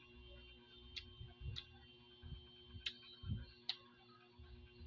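Quiet sounds of a meal eaten by hand from a plate of rice and fried fish: four sharp clicks and a few soft low thumps, over a faint steady hum.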